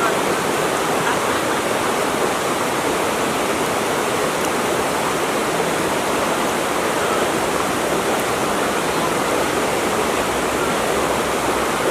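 Flowing water rushing steadily and evenly, without a break.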